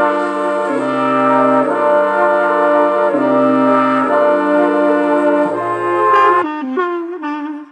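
Instrumental background music: slow held chords over a bass line, changing about once a second. It breaks off about six and a half seconds in, and a few softer notes follow.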